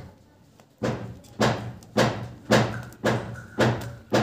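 A steady run of dull thuds, about two a second at a very even beat, starting about a second in.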